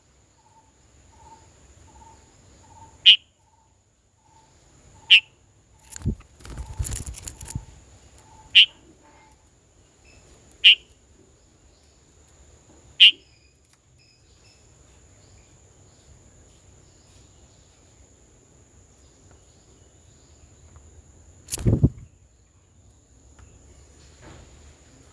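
Sharp single bird calls, short and loud, repeating about every two seconds, over a faint steady high tone. About six seconds in comes a brief flurry of rustling or flapping, and later a single loud knock.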